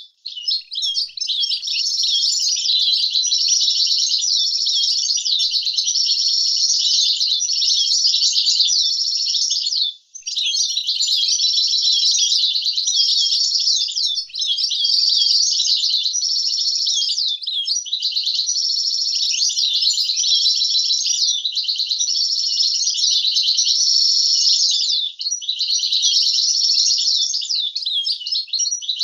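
European goldfinch singing its fast, continuous twittering song, a clean tutor song recording with no background noise. The song breaks off briefly just after the start and again about ten seconds in.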